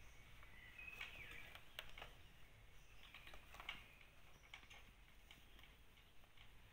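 Faint, irregular clicks and scratches of kittens' claws and paws scrabbling on a rubber clog and a rug as they play.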